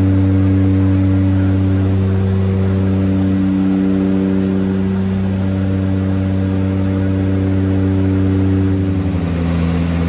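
Cockpit drone of a de Havilland Canada DHC-6-300 Twin Otter's two Pratt & Whitney PT6A-27 turboprops and propellers in flight, heard inside the cockpit: a loud, steady hum of several held tones over a rushing noise. About nine seconds in, the tones step down slightly in pitch.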